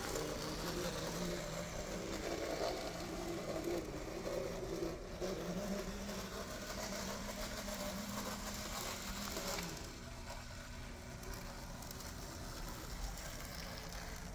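Märklin Z scale 4-6-0 steam locomotive's small electric motor and gears whirring steadily as it runs along the track, a running noise typical of a unit not yet broken in. The hum drops in level about ten seconds in.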